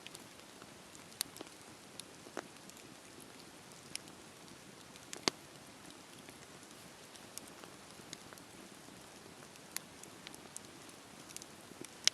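Wood bonfire crackling: irregular sharp pops and snaps over a soft steady hiss, the loudest pop about five seconds in.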